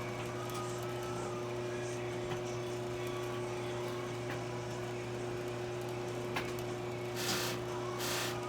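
Electric buffing wheel motor running with a steady hum. Twice near the end there are brief hissing rubs as carnauba wax or the pipe is pressed against the spinning wheel.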